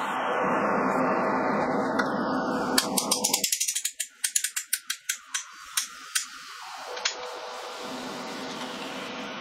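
Rapid run of sharp mechanical clicks, like a ratchet, from the depth-adjustment mechanism of a homemade swingblade sawmill as its height setting is moved. The clicks start about three seconds in, come quickly and then thin out and stop a few seconds later.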